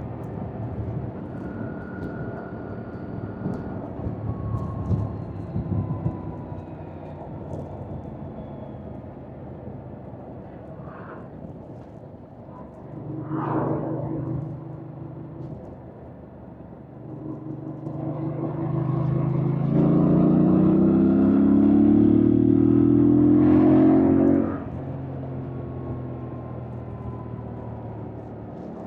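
Yamaha MT-07's parallel-twin engine under way, running light off the throttle for the first half with a short rise about thirteen seconds in. About seventeen seconds in it revs up, rising in pitch, and pulls hard and loud for several seconds before cutting back suddenly.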